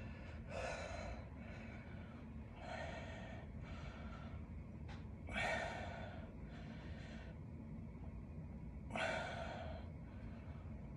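A man breathing hard under exertion while holding dumbbells in a static pinch-grip hold: about six heavy, airy exhales, a second or two apart.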